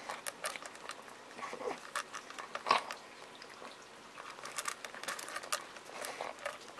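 A cat eating from a stainless steel bowl: irregular crunching and clicking as it chews, with one sharper click a little under three seconds in.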